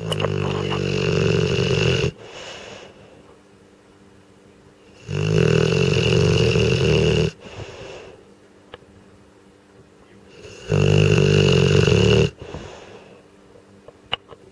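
Dogue de Bordeaux snoring: three long, loud snores about every five seconds, each lasting about two seconds and followed by a fainter breath.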